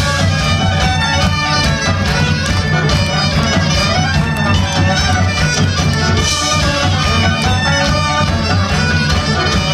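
A live band with a horn section (trombone, clarinet and saxophone) playing over drums, electric guitar and bass guitar, loud and continuous.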